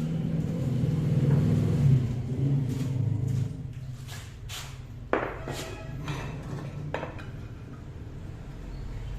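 A workshop machine runs with a low hum that drops away about three and a half seconds in. After that come several sharp knocks, the loudest about five seconds in with a brief ring.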